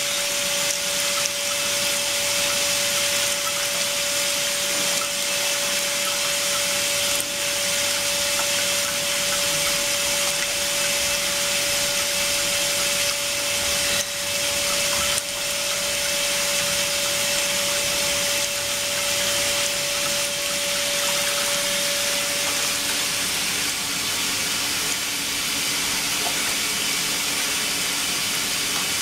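Water circulating through an ultrasonic cleaning tank: a steady hiss of water pouring in from a pipe and spilling over the tank's overflow weir. A steady mid-pitched hum runs under it and stops about three-quarters of the way through.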